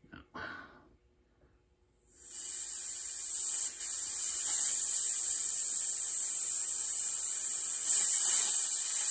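Compressed air hissing steadily through a railroad single car test device, starting about two seconds in, as a valve is opened to simulate a brake-pipe leak. The flow is strong: a high leak rate.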